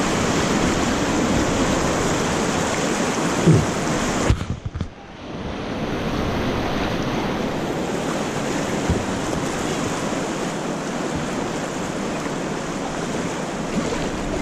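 River rapids rushing steadily around an inflatable raft. A couple of knocks come about three and a half to four seconds in, then the sound turns briefly muffled and drops for about a second before the rush returns.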